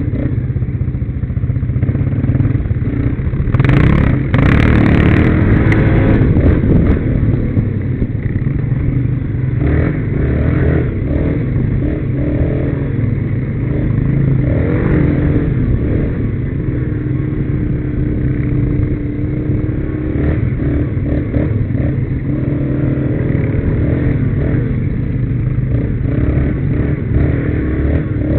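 Quad bike (ATV) engines running on a rough dirt trail, the nearest one's note rising and falling as it is throttled on and off, with clatter from the bumpy ride. A louder, harsher stretch comes about four seconds in and lasts a couple of seconds.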